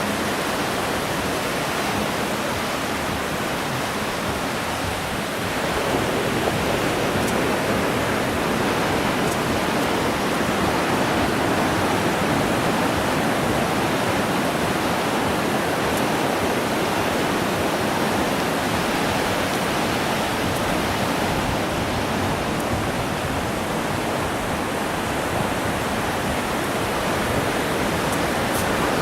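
Steady rushing roar of ocean surf breaking on a beach, swelling slightly a few seconds in.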